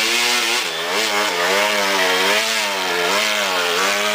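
Honda CR250 two-stroke dirt bike engine revving as the bike wades through a river, its pitch rising and falling repeatedly with the throttle, with water splashing around the wheels.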